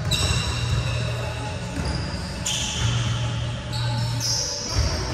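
Basketballs bouncing on a hardwood gym floor, with high-pitched squeaks coming in several times, as from sneakers on the court, all echoing in a large hall.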